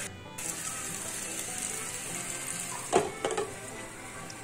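Spiced elephant foot yam slices sizzling steadily in oil in a pan as they fry toward golden brown. About three seconds in there is a brief clatter of two or three quick knocks as a glass lid is set on the pan.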